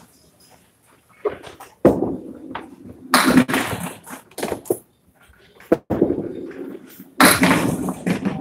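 Candlepin bowling: balls hitting the lane and pins clattering down, in several sharp crashes one to three seconds apart, with the longest and loudest a few seconds in and again near the end.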